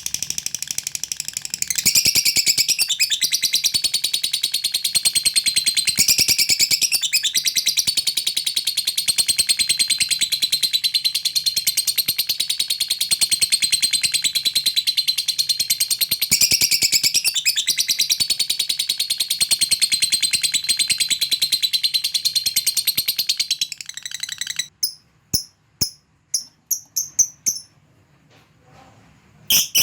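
Lovebird giving a long, unbroken, very rapid high-pitched chattering trill: the 'ngekek panjang' (long chatter) that keepers prize. About four-fifths of the way through it breaks off into a few short, separate chirps.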